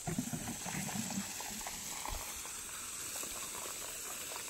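Water spraying from a garden hose and spattering onto soil and plants, a steady hiss with a few heavier low splashes in the first second or so.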